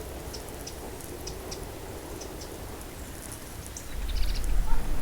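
Outdoor ambience: a steady faint hiss dotted with short high chirps and ticks. A loud low rumble comes in about four seconds in.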